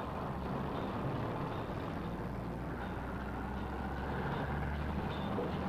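Busy city street traffic: engines of buses, trucks and cars running in a steady, dense rumble.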